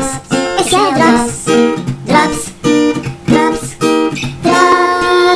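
Intro music: a strummed acoustic guitar with a singing voice in short phrases, settling into a held chord near the end.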